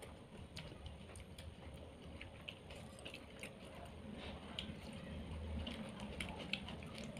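Faint eating sounds: a person chewing and eating fried fish and rice by hand, with scattered soft clicks and small wet smacks from mouth and fingers.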